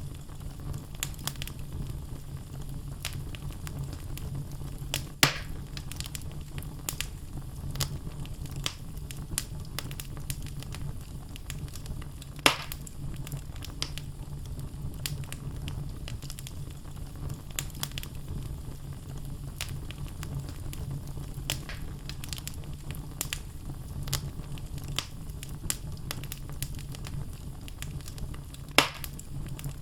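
Wood logs burning in a fireplace, crackling with frequent small snaps over a steady low rumble of the flames. Three louder pops stand out, at about 5 seconds, about 12 seconds and near the end.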